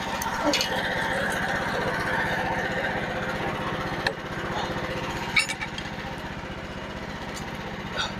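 Engine running steadily at a constant speed, with a few short knocks over it.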